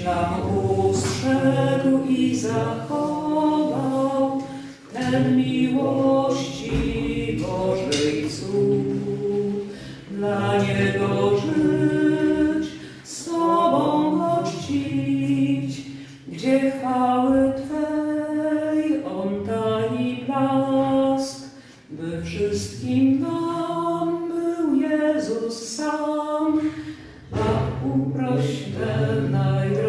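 Group of voices singing a hymn unaccompanied, in sung phrases a few seconds long with short breaks between them.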